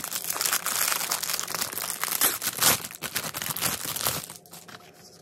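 Thin clear plastic bag crinkling and rustling as hands pull it open off two cardboard product boxes, in an irregular crackle that dies down near the end.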